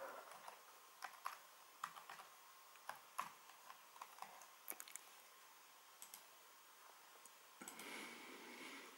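Keys of a computer keyboard pressed one by one in quiet, irregular clicks while a password is typed. A soft rustle lasting about a second comes near the end.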